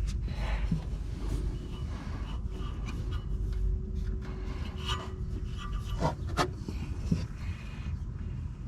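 Hands rubbing and scraping on a new spin-on oil filter as its rubber seal is oiled and it is readied for fitting, with a few sharp clicks a little past halfway.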